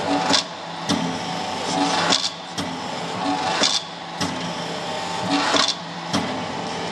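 Small 25-ton hydraulic forging press at work drawing out a red-hot bar: its hydraulic power unit hums steadily, and a short hiss and knock comes with each press stroke, repeating at uneven intervals of about a second.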